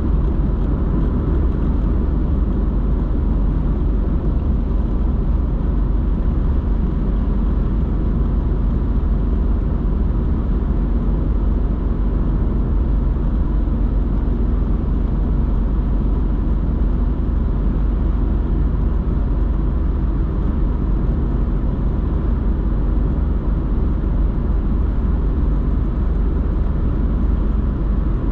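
Steady road noise and engine drone inside a moving car's cabin: a deep, even rumble with tyre noise, unchanging throughout.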